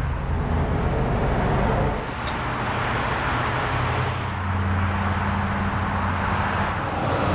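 Cadillac 4.6-litre 32-valve Northstar V8 idling steadily: a low, even hum under a broad hiss.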